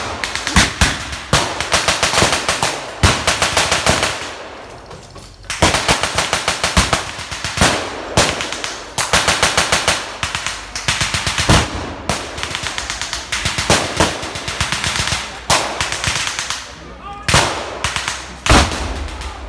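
Rapid bursts of blank gunfire from machine guns and rifles in a WWII battle re-enactment, with a short lull about four seconds in.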